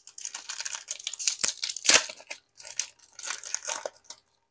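Wrapper of a Hoops hobby pack of basketball cards being torn open and crinkled: two spells of crackling rustle, with the loudest rip just under two seconds in.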